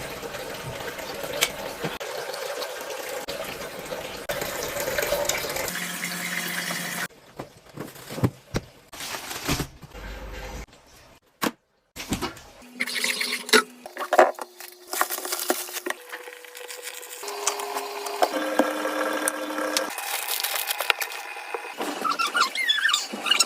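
Fish-tank water trickling and splashing steadily, broken up by abrupt cuts. Later come sharp knocks and a few held tones that step from one pitch to another.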